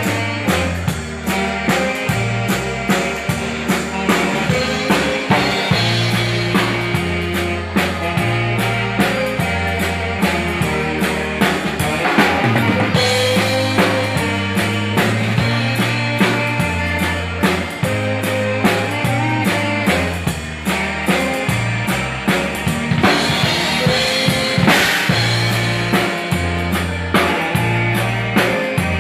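Live Texas Czech dance band playing a dance number: a drum kit keeps a steady beat under alternating bass notes and melody.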